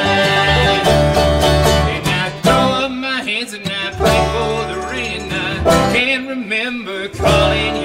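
Bluegrass band playing on acoustic guitar, banjo, mandolin and upright double bass, with the bass briefly dropping out between phrases.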